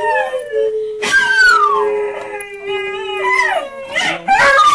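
Schnauzers and a miniature dachshund howling along with a howling dog played from a computer video: several overlapping long howls that rise and fall in pitch, with one held on a steady note for a few seconds.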